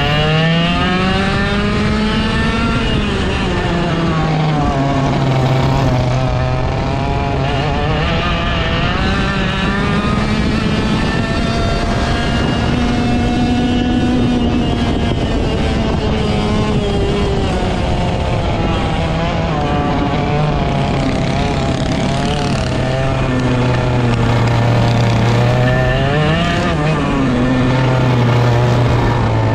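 Direct-drive dirt kart engine heard from on board, running hard through most of a lap. The revs climb on the straights and fall away into the corners several times, with the highest run about halfway through and a short rise and drop near the end.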